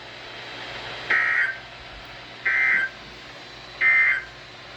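NOAA Weather Radio SAME end-of-message signal: three short bursts of digital data tones, about a second apart, over faint radio hiss. They mark the end of the alert broadcast.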